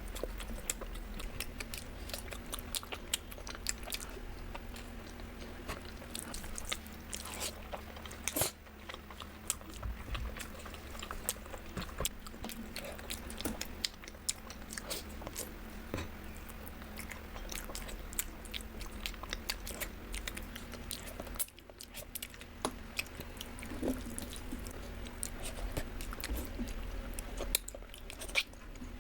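Close-miked eating: chewing and biting, with many small irregular crunchy clicks, over a faint steady hum.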